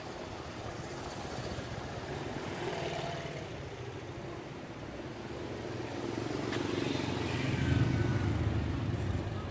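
Small motor scooters riding past one after another, their engines running. One swells past about three seconds in, and a louder one passes close about eight seconds in, then drops away sharply near the end.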